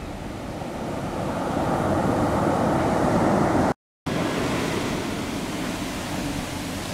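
Sea surf breaking and washing up the beach as the tide comes in, swelling over the first few seconds. The sound cuts out completely for a moment just under four seconds in, then the surf carries on steadily.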